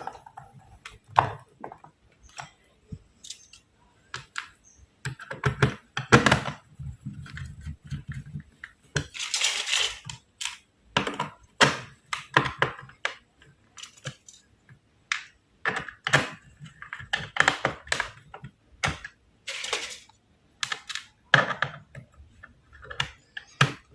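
Small screws and a screwdriver clicking and scraping against the plastic bottom cover of an Acer laptop as the cover is screwed back on. The sounds come as scattered taps with a few short rasps.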